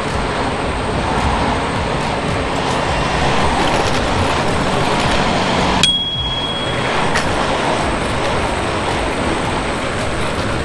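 Steady road and traffic noise while riding an electric scooter in city traffic. About six seconds in there is a sharp click and a single bell ding that rings for about a second.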